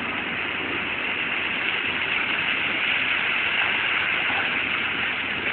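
Illuminated fountain's water jets splashing down into the basin: a steady rushing hiss that swells slightly in the middle.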